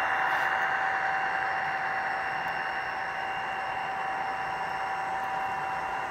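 Model freight train cars rolling past on the track: a steady hiss of small metal wheels on rail, with a thin steady whine on top, easing slightly in loudness.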